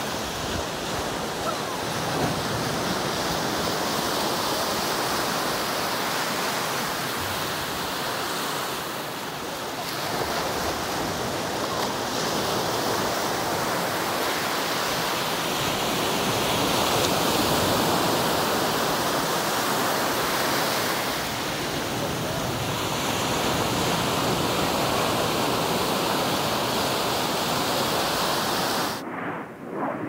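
Ocean surf: a steady rush of breaking waves with slow swells and slight shifts in tone about ten and twenty seconds in. Near the end the rush cuts off abruptly and gives way to a duller, uneven rumbling.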